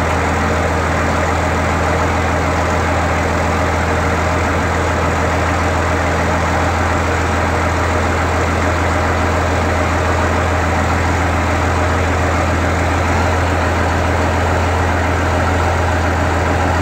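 John Deere 4850 tractor's six-cylinder turbocharged diesel idling steadily, still warming up after a cold start.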